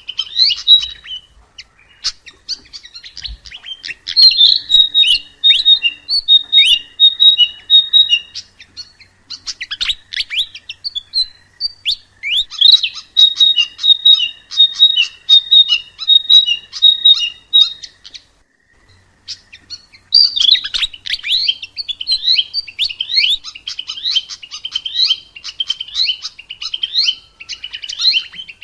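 Sikatan emas, a Ficedula flycatcher, singing a fast, unbroken chatter of high chirps, with long runs of one repeated high note. The song breaks off for about a second and a half about two-thirds of the way through, then resumes with quick rising and falling notes.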